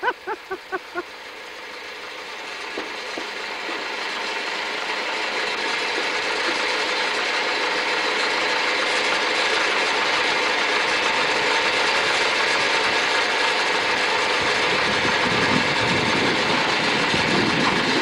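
Tractor-backhoe engine running and working the boom and bucket, a dense steady mechanical noise that grows louder over the first several seconds and then holds steady.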